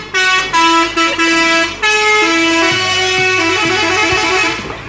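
Melodic multi-tone air horn playing a quick tune of short stepped notes, fading out near the end.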